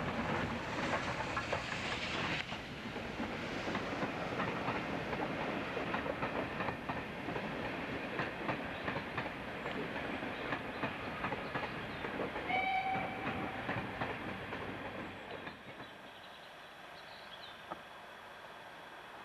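Steam train of coaches running past, its wheels clattering over the rail joints, with a short high squeal about two-thirds of the way through. Near the end the train sound gives way to much quieter background sound.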